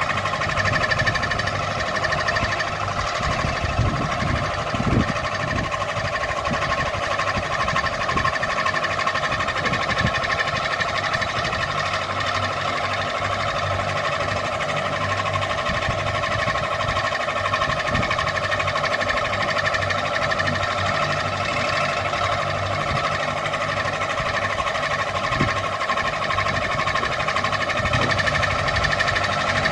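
Ceiling fan running, a steady whine of several held tones with irregular low knocks underneath.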